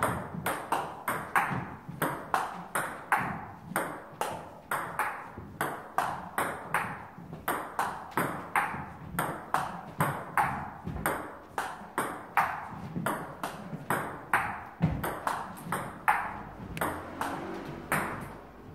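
Table tennis rally: the celluloid-type ball clicking off the paddles and bouncing on the table in a quick, even back-and-forth, about three hits a second, with no break.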